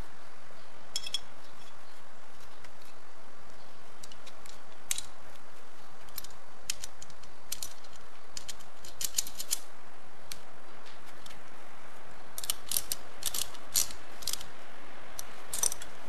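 Scattered small metallic clicks and clinks as a welding earth clamp and a brass cable lug are handled and the clamp's terminal bolt is worked, coming in little clusters, with more of them toward the end. A steady hiss sits underneath.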